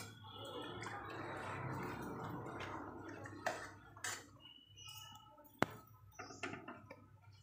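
Banana leaves being swished and pushed through hot water in a pan, the water sloshing softly for the first few seconds, then a few sharp clicks of the utensil against the pan as the leaves are lifted out.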